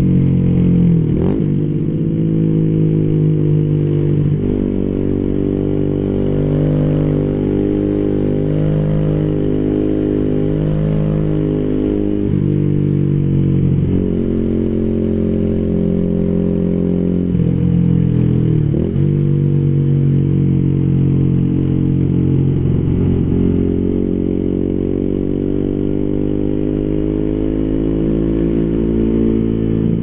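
2014 Yamaha YZF-R125's single-cylinder four-stroke engine running through an Arrow racing header and Arrow Thunder slip-on with dB-killer, heard without wind noise from a phone in the rider's backpack. The engine note steps up and down with throttle and gear changes while riding, with brief sharp dips about a second in and again a little past the middle.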